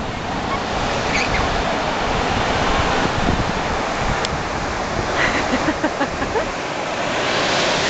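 Ocean surf breaking and washing up the beach, with wind buffeting the microphone. The wash swells louder near the end.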